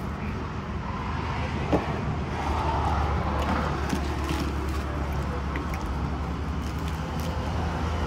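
Steady low drone of vehicle engines and road traffic, with a short click just under two seconds in.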